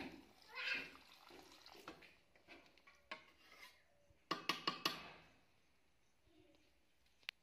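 Water splashing as it is poured into a steel kadai of curry, then a metal spatula stirring and knocking against the pan, with a quick run of ringing metal clinks just past the middle and a single sharp click near the end.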